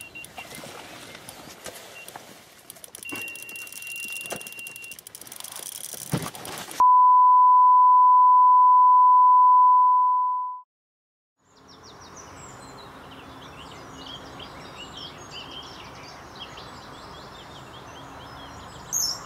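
Lake-side sound with scattered small splashes and clicks. About seven seconds in, a loud, steady test-tone beep sounds for about four seconds and cuts off into a second of silence. Then a steady outdoor hiss carries many short bird chirps.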